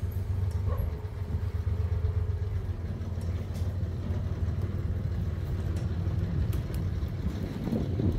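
An engine running steadily, a low rumble without change in pitch.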